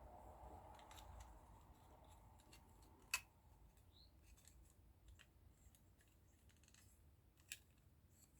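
Near silence broken by a few faint clicks of small plastic model-kit parts being handled and snapped together, one sharper click about three seconds in and another near the end.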